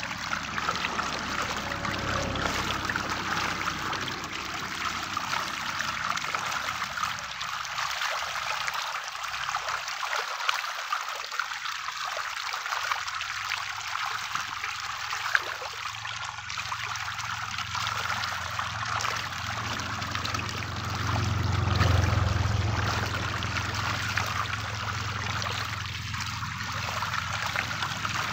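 A dense school of sarpunti barbs thrashing and jostling at the water's surface: a continuous crackle of many small splashes. A low hum swells briefly about three-quarters of the way through.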